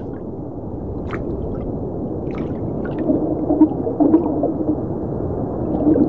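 Muffled underwater ambience: a steady low rush, with a few faint gurgling, wavering tones and soft ticks.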